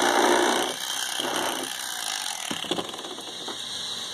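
Battery-powered electric knife running, its blades sawing through a fish's fin. It runs loudest through the first second, runs again briefly a second later, then stops, followed by a few light knocks.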